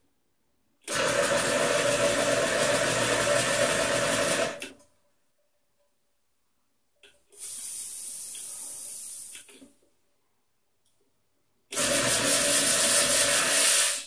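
Clatronic ES-2243 steam espresso maker pushing hot water and steam out of its metal pipe into a pot: a loud sputtering rush with a low hum for about four seconds, a quieter, higher hiss of steam alone for about two seconds in the middle, then the loud rush again near the end. The bursts come on and stop sharply as the selector knob is switched between settings.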